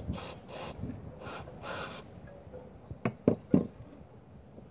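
Aerosol throttle body cleaner sprayed through its straw into a Honda four-cylinder engine's throttle body in about five short hisses, followed by a few short knocks about three seconds in.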